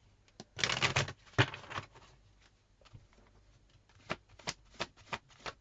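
Tarot cards being handled: a short burst of shuffling about a second in, then a few separate light clicks of cards near the end.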